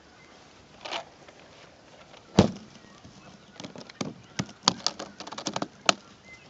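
Cable clips and gear being handled and packed into an aluminium detector case: a soft brushing sound, one sharp knock about two and a half seconds in, then a quick run of small clicks and taps.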